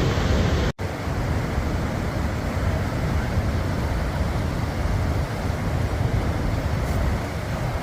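Steady loud rushing roar, heaviest in the low end, of a tour boat near Niagara Falls: rushing water mixed with the boat's running. The sound drops out for an instant just under a second in.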